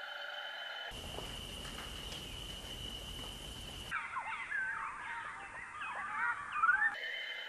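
Birds chirping with many short rising and falling calls for about three seconds, with a quick upward sweep near the end. Before that come a steady hum of held tones and then a hiss, which start and stop abruptly as the sound clips are spliced together.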